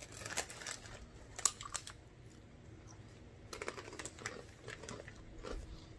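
Faint, scattered crackly clicks from handling a bag of crunchy barbecue corn rings. They come in small clusters, with one sharper click about a second and a half in.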